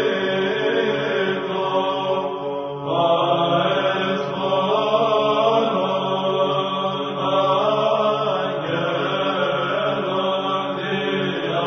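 Orthodox church chant: voices singing slow, long-held notes, with a new, louder phrase coming in about three seconds in.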